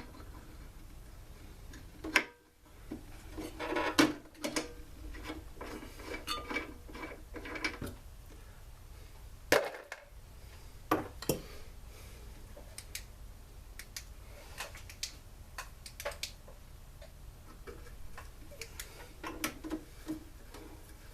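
Scattered clicks and knocks of hand tools and parts being handled while a backpack blower is taken apart, the loudest about two, four and ten seconds in.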